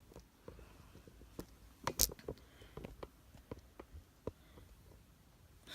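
Scattered light clicks and knocks at irregular intervals, the loudest about two seconds in.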